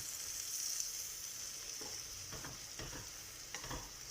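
Onion and tomato masala sizzling steadily in hot oil as it is stirred, with a few light spoon knocks and scrapes against the pot in the second half.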